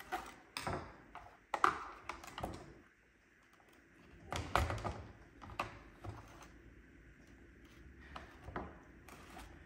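Scattered light clicks and knocks of hard plastic parts and a small tool being handled as a robot vacuum is taken apart, with a short silent gap about three seconds in.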